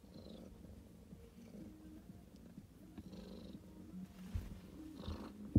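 Cat purring steadily with a low, rippling rumble, with a soft bump near the end.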